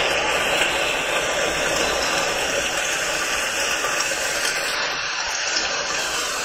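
Steady, loud noise with no clear tones or beats.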